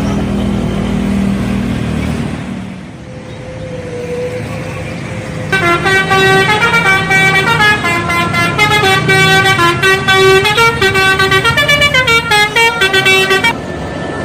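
Bus telolet horn playing a fast multi-note tune for about eight seconds, the notes stepping up and down, then cutting off suddenly. Before it, a bus engine runs low.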